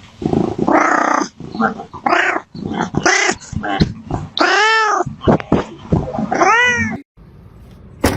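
Cat meowing and yowling in a run of short and long calls. Two long meows rise and fall in pitch, one about four and a half seconds in and one about six and a half seconds in.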